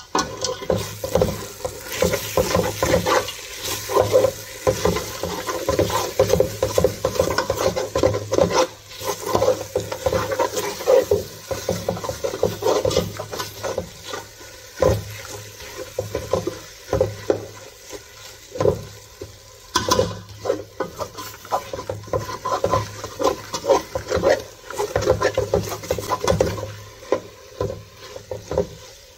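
A metal spoon stirring and scraping thick semolina halwa around an aluminium pot, with frequent irregular scrapes and clacks against the pot's sides and base, over a steady low hum.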